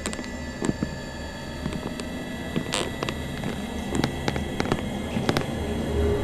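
A low steady drone with scattered sharp clicks and creaks at irregular intervals, slowly growing louder.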